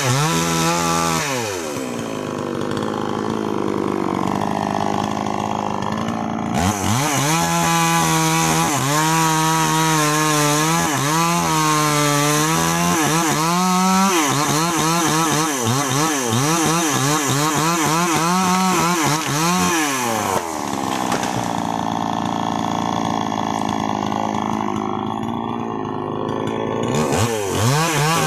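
Two-stroke chainsaw cutting into a sengon tree trunk. It drops to idle about two seconds in and returns to full throttle at about six and a half seconds, its pitch wavering as it cuts the wood. It falls back to idle at about twenty seconds and revs up again near the end.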